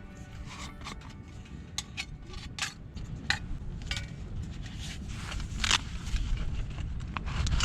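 Scattered light clinks and taps of metal camp cookware being handled, over a steady low rumble that grows louder near the end.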